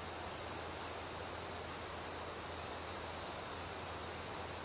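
Night insects calling: one high, unbroken trill, and a second, higher one in short repeated pulses, over a steady background hiss.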